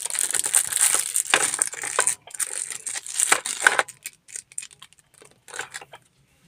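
Clear plastic bags crinkling and crackling as hands handle them. The crinkling is dense for the first four seconds, then comes in scattered crackles.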